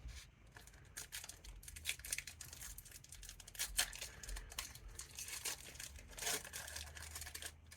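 Foil wrapper of a Pokémon TCG Fusion Strike booster pack being torn open and crinkled, making a faint, irregular crackling.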